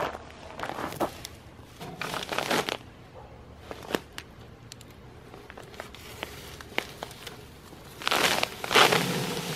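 Plastic bag of play sand crinkling as it is lifted and handled, with a few footsteps on gravel at the start. About eight seconds in, the bag is torn open with a loud rip and sand starts to pour out in a steady hiss.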